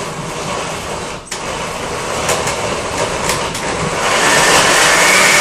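Countertop blender motor running, grinding roasted dried chiles with pork broth into an adobo sauce. It dips for an instant about a second in, then runs on and gets louder near the end.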